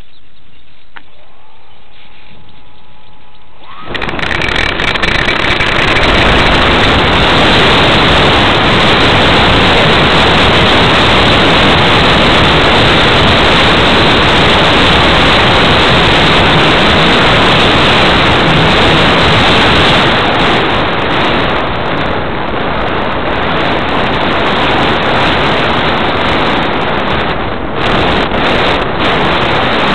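Loud, steady wind rush over the microphone of a camera towed behind a radio-controlled Cessna 182 model in the air. It comes in suddenly about four seconds in and eases a little in the second half. Before it there is only a faint rising whine.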